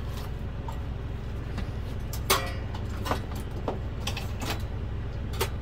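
A few scattered clicks and clanks of hand tools being handled, the loudest about two seconds in, over a steady low hum.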